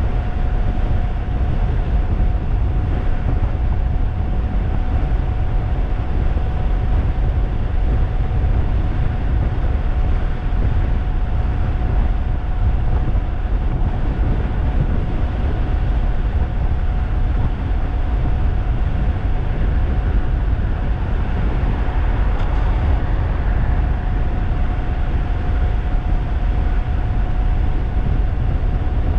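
Wind rushing hard over the microphone of a 3000-watt DIY electric bike ridden at a steady fast cruise, with the electric motor's steady, unchanging whine beneath it.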